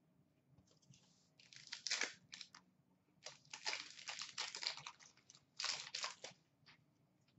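Foil wrapper of a hockey card pack being torn open and crinkled by hand, in three crackly spells, the longest about two seconds.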